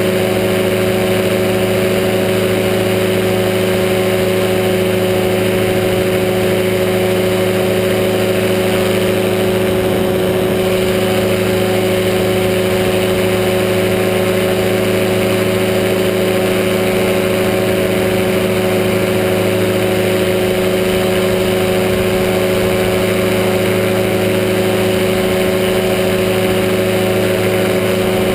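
Powered parachute's engine and propeller running steadily in cruise flight: a constant, even drone that holds one pitch throughout.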